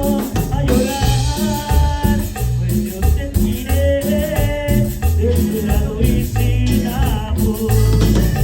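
Live band playing a Latin song with a steady, rhythmic bass line and melodic lines over it.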